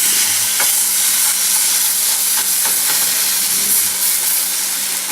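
Chicken searing in a hot pan, sizzling steadily and loudly as its outside crusts over, with a few faint pops.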